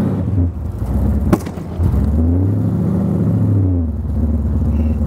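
Supercharged 383 cubic-inch small-block Chevy V8 in a street rod under way. The engine note drops with a sharp click about a second in, then climbs steadily for about two seconds as it accelerates, and eases off.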